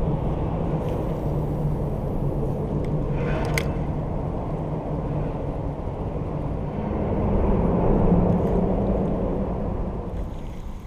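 Steady low rumble of motor traffic on the road bridge overhead, swelling about seven to nine seconds in. A short high squeak sounds once, about three and a half seconds in.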